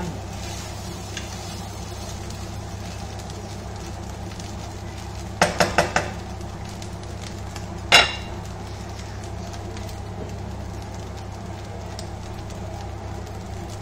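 Wooden spatula stirring fried rice in a wok, with four quick taps on the wok about halfway through and one sharp knock a couple of seconds later. A steady low hum runs underneath.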